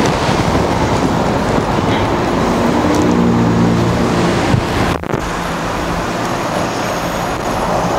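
Steady roaring hiss of an outdoor propane burner running on high under the pan. A low hum with several tones rises over it for about a second and a half around the middle.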